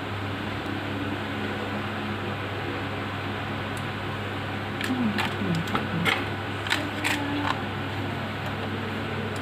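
Mechanical keyboard keys being pressed one after another in a series of sharp clicks starting about halfway through, as the repaired keyboard is tested. A steady hum runs underneath.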